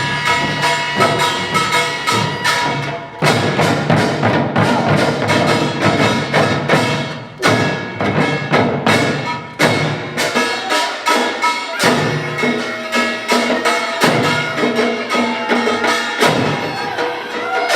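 Korean pungmul percussion ensemble playing a fast, dense rhythm of rapid strikes, with metal gongs ringing over the drums.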